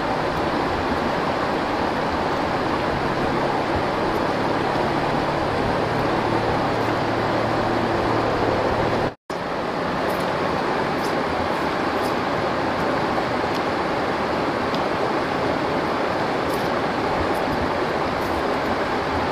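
Rushing stream over rocks: a steady, even rush of water that drops out completely for a moment about nine seconds in.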